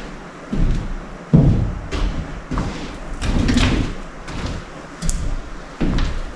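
A series of knocks and clunks from transmission parts being handled and set down on a workbench, the loudest about a second and a half in, with a short scraping stretch in the middle.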